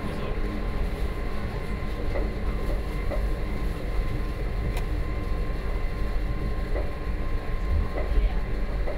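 Gornergrat Bahn rack (cog) railway train running uphill, heard from the driver's cab: a steady low rumble of wheels and rack gear with a constant hum. There is a single sharp click about five seconds in.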